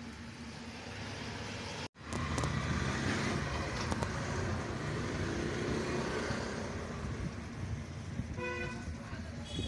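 Road traffic passing along the street, a steady low rumble that cuts out for an instant about two seconds in and then comes back louder. Near the end, a short pulsing pitched toot.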